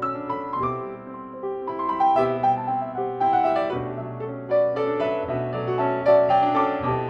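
Background piano music, notes played in a steady flowing run.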